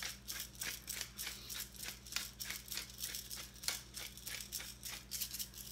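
Hand-twisted pepper mill grinding peppercorns: a steady run of quick, crisp grinding clicks, several a second.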